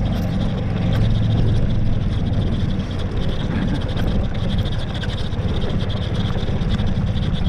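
Utility buggy driving along a rutted dirt track: a steady rumble of its motor and tyres, dipping briefly about three seconds in.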